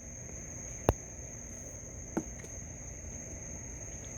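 Steady high-pitched chirring of crickets, with a sharp click about a second in and a softer click followed by a short falling squeak about two seconds in.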